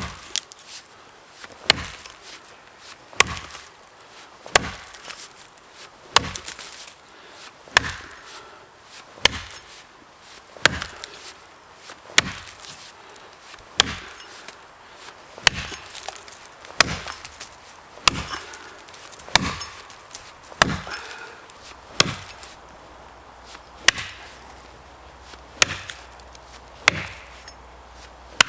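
Axe blows chopping into a pine trunk, a steady series of about twenty sharp strikes, roughly one every second and a half. These are the strokes of the back cut, made from the side opposite the face cut.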